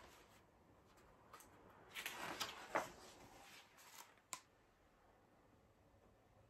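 A page of a hardcover picture book being turned and the book handled: a brief papery rustle about two seconds in, with a few faint clicks and taps around it.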